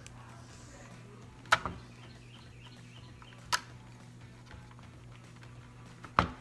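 Three sharp clicks a couple of seconds apart, from a screwdriver and the plastic parts of an Ecovacs Deebot M80 Pro robot vacuum being handled during disassembly, over a faint low steady hum.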